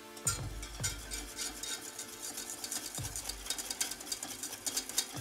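Wire balloon whisk stirring a thin soup in a stainless steel pot, its wires scraping and clicking rapidly against the pot's sides and bottom.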